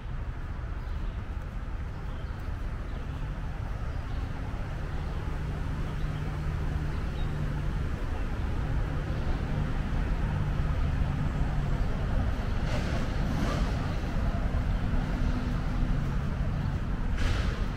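Road traffic running by: a steady low engine hum and tyre rumble that grows gradually louder, with a few short hisses in the last few seconds.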